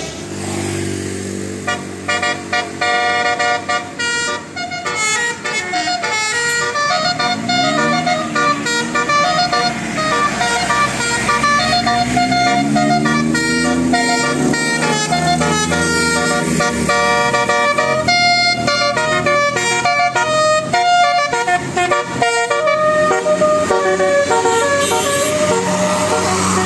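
Indonesian bus 'telolet' multi-tone air horn playing a melody of stepped tones, with pitch glides rising and falling midway through.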